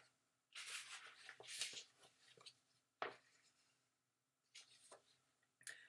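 Pages of a hardcover picture book rustling as they are turned and handled, with a single light tap about three seconds in and a few faint paper scuffs near the end.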